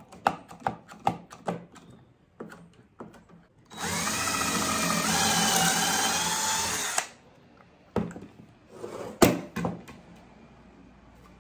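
Power drill running a pocket-hole bit through a Kreg jig into scrap wood for about three seconds, its pitch dropping partway through. Clicks and knocks of the jig and wood being handled come before and after the drilling.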